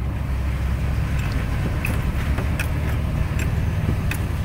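Vehicle driving on a dirt road, heard from inside the cab: a steady low engine and tyre drone with a few scattered light clicks and rattles.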